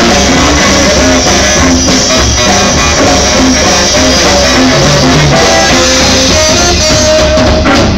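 Live swing jazz band playing loudly, with saxophones over a drum kit.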